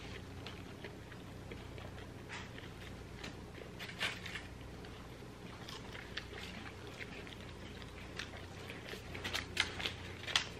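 Chewing and wet mouth smacks from people eating burgers and fries, with scattered short clicks, the loudest about four seconds in and a cluster near the end.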